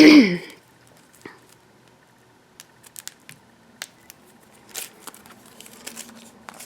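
A brief vocal sound right at the start, then scattered soft clicks and faint rustles of craft-product packaging being handled and opened.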